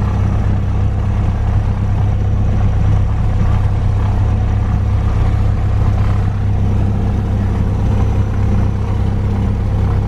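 Cessna Skyhawk's piston engine and propeller running steadily at low power, a constant drone heard from inside the cabin.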